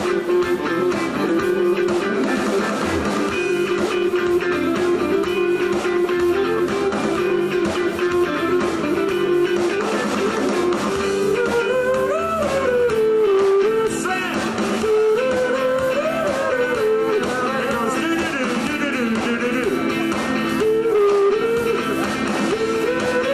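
Live band music led by guitar, with a bluesy feel. About halfway in, a lead melody comes in that bends up and down in pitch.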